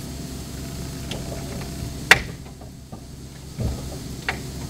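A sharp, loud click about two seconds in, then a dull thump and a smaller click near the end, over a steady low rumble.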